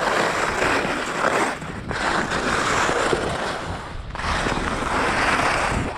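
Skis scraping over groomed snow in three long swells, each broken off by a short dip, with wind rumbling on the microphone at speed.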